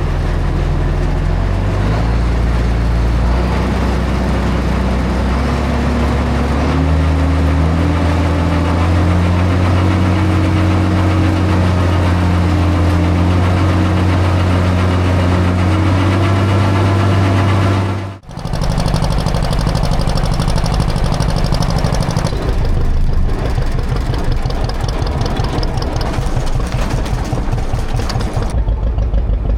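John Deere tractor engine running, its pitch climbing over the first several seconds as it speeds up, then holding steady. About two-thirds of the way through it breaks off abruptly and a lower, steady engine sound with a fast even beat takes over.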